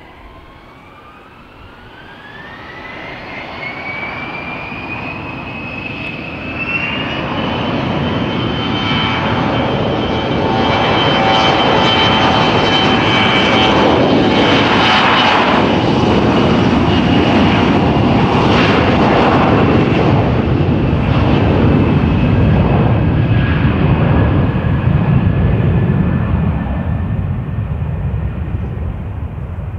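Mitsubishi CRJ-702ER regional jet taking off on its two rear-mounted General Electric CF34 turbofans. The engines spool up with a rising whine over the first several seconds. The sound then swells into a loud jet roar at takeoff thrust as the aircraft rolls past, easing off near the end as it rotates and lifts off.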